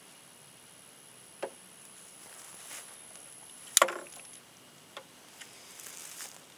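A few sharp knocks and clicks of tools being handled against a wooden deck rail as a folding saw is readied to cut an axe handle, the loudest knock just before four seconds in, with a soft scraping rustle near the end.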